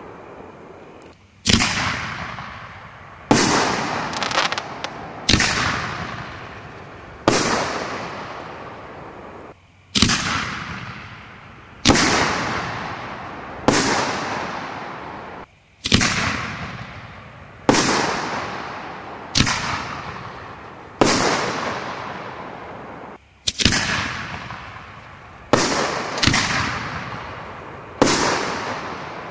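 Aerial firework shells bursting one after another, a sharp bang about every two seconds, each fading out over a second or two.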